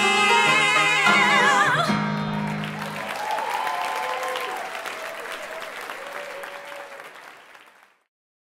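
Two singers hold the final note of a musical-theatre duet with wide vibrato over a sustained grand piano chord, cutting off about two seconds in. An audience then breaks into applause, which fades away near the end.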